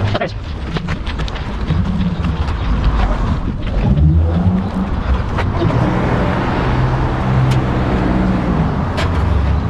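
A car engine running close by, a steady low hum that grows a little louder about halfway through, with traffic noise and a few clicks.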